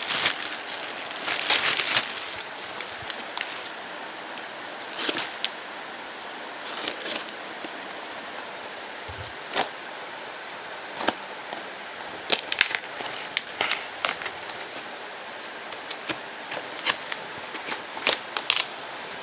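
A phone's package being opened by hand: irregular sharp clicks and short rustles of packaging over a steady background hiss.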